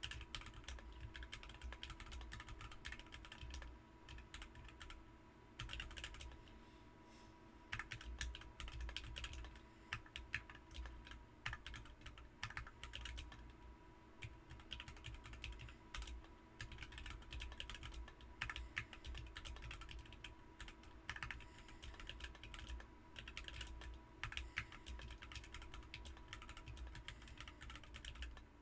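Typing on a BM43 40% mechanical keyboard fitted with Ms Piggy switches: a quick, irregular run of keystroke clacks with brief lulls about four and seven seconds in.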